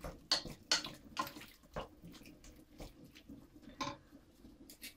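Wooden spoon stirring a wet mushroom and tofu stroganoff in a frying pan, with a handful of sharp knocks and scrapes of the spoon against the pan.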